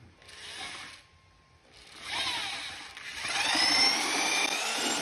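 Electric drill turning a paddle mixer through drywall compound and water in a plastic bucket. It runs briefly, stops for under a second, then starts again and speeds up, with a rising whine about three seconds in.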